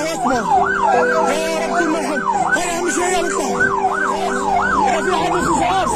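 Ambulance sirens in a fast rising-and-falling yelp, about three sweeps a second, with more than one siren overlapping over a steady lower hum.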